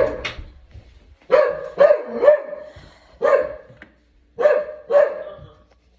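A dog barking in short bursts, about seven barks coming in groups of two and three.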